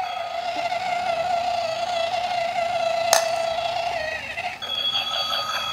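Battery-powered toy stunt tricycle switched to its sound setting, playing an electronic tone: a steady, slightly wavering buzz that changes to a different, higher tone a little before the end. There is a single click about three seconds in.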